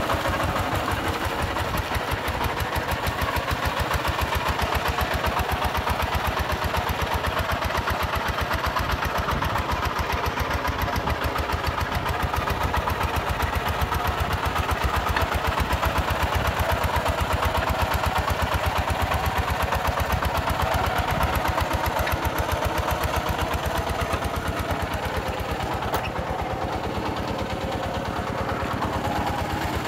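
Kubota RT140 walking tractor's single-cylinder diesel engine chugging in a fast, even beat as it hauls a loaded trailer through a muddy paddy on steel cage wheels.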